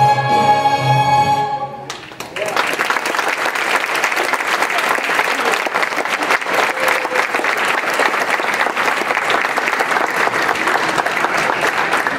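A children's chorus with accompaniment holds the final note of a song, which cuts off about two seconds in; an audience then applauds steadily.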